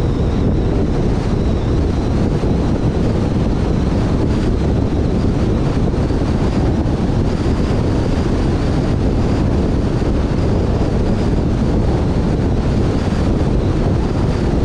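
Car driving on a motorway: steady tyre and wind noise, with a faint high whine over it.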